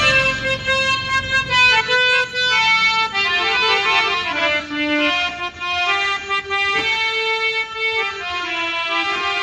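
Harmonium fitted with a Casio electronic keyboard unit, playing a melody of held notes that step up and down.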